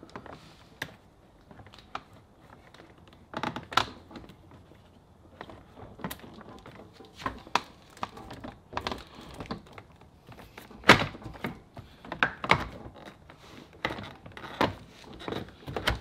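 Dull thunks and knocks of a Mercedes-Benz W204 rear door trim panel being pushed and pressed onto the door, about a dozen at uneven intervals, the loudest about eleven seconds in. The panel is being seated so its top groove sits flush on the window rubber.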